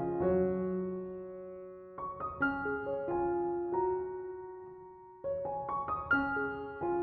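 Soft background piano music: gentle phrases of a few notes, each left to ring and fade before the next phrase begins.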